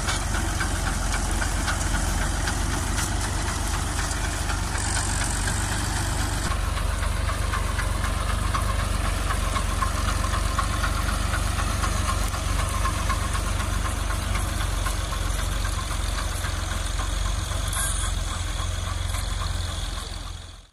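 Tractor's diesel engine running steadily under load while pulling a tractor-mounted garlic digger through the soil. The sound fades out just before the end.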